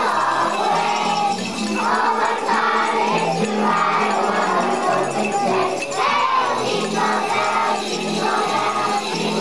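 A large group of young children singing a Christmas song together, with jingling bells and a steady accompaniment.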